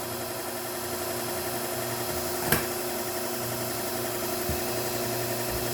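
Bucktool slow-speed belt grinder running steadily with an even motor hum. A sharp click comes about two and a half seconds in and a soft knock about two seconds later.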